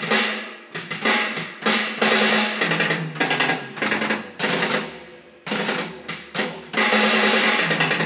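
Homemade electronic drum kit being played, its pads triggering sampled drum sounds: a drum-kit pattern of snare, tom and kick hits with rolls and fills. Hits come thick and fast, ease off with toms ringing out about four to five seconds in, then build into a dense roll near the end.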